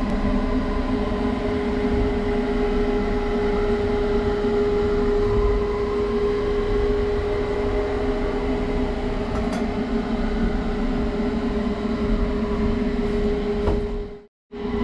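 A passenger train carriage running along the track, heard from inside its small toilet compartment: a steady rumble with a steady hum over it. The sound breaks off for a moment near the end, then resumes.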